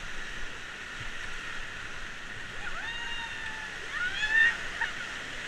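Steady rush of river rapids around a raft. From about three seconds in, a few short yells rise over the water, the loudest near the end.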